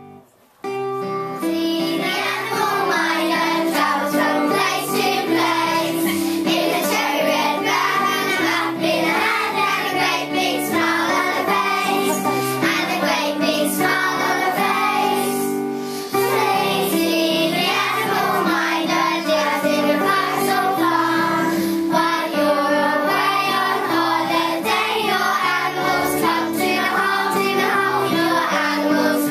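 A class of young children singing a song together over backing music, beginning about half a second in.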